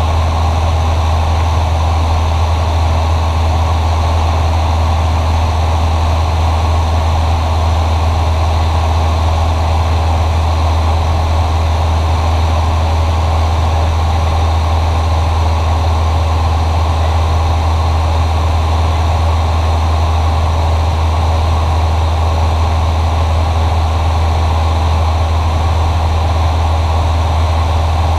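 Cessna 172SP's four-cylinder Lycoming IO-360 engine and two-blade propeller running steadily in flight, heard inside the cockpit as a constant low drone.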